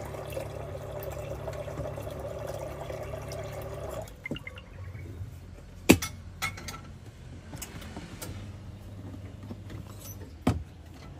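Water running from a drinking-water tap into a metal-lined electric kettle, stopping about four seconds in. Then a few sharp clicks: the loudest about six seconds in as the kettle lid is snapped shut, and a knock near the end as the kettle is set down.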